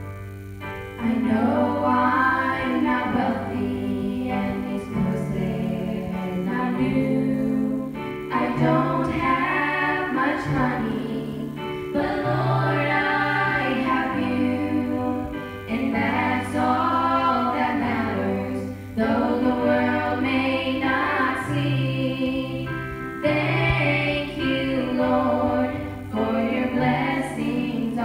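Three women singing a song together into microphones, amplified through a PA, over an instrumental accompaniment.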